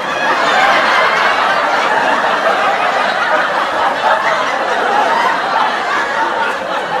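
Crowd laughing together, a continuous laugh-track sound effect.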